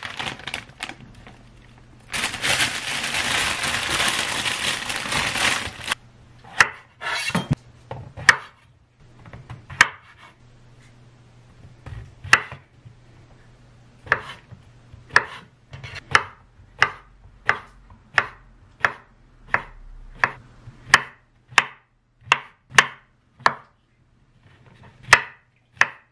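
Plastic packaging crinkling and rustling for a few seconds near the start. Then a kitchen knife cutting king oyster mushrooms on a wooden cutting board: sharp knocks of the blade on the board, uneven at first, then a steady cut about every two-thirds of a second.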